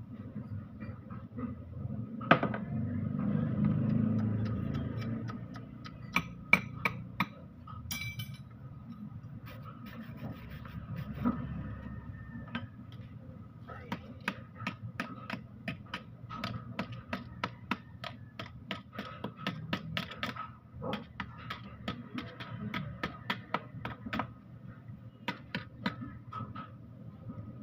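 Metal tools knocking, tapping and clicking against a truck gearbox housing as it is taken apart. There is one sharp knock early on and a ringing metallic click, then from about halfway a quick, irregular run of taps and clicks, over a steady low background hum.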